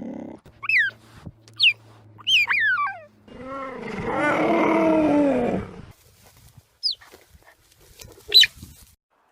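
Animal calls: several short, high, sliding whines, then a loud, rough, drawn-out call lasting about two and a half seconds that rises and falls in pitch, followed by a couple more short high cries.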